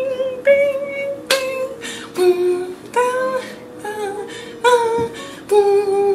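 Intro theme music with a woman singing: a melody of held and changing notes with sharp attacks every second or so.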